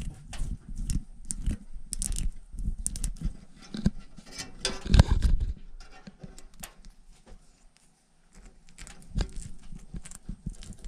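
Handling noise from work inside a gas furnace, the hot surface igniter being swapped: a run of clicks, taps and rustles, with a louder knock and scrape about five seconds in and a short pause a couple of seconds later.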